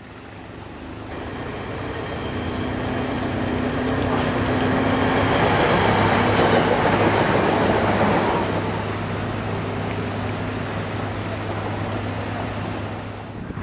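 A passing train, growing louder over several seconds to a peak near the middle, then easing to a steady low rumble with a hum.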